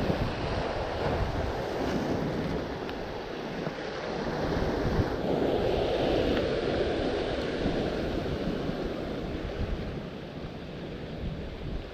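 Ocean surf washing steadily, with wind buffeting the microphone; a wave surges up about five seconds in and eases off over the next few seconds.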